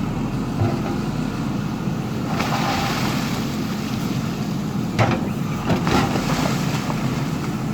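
Dozer's diesel engine running steadily, with a few sharp knocks about five to six seconds in.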